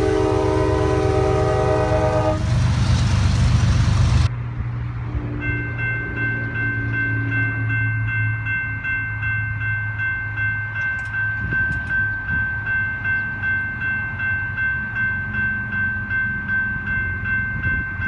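Norfolk Southern diesel locomotive's air horn blowing one long chord as it passes close, the locomotive running under it and ending about four seconds in. Then a grade crossing's warning bell rings in an even, repeating rhythm.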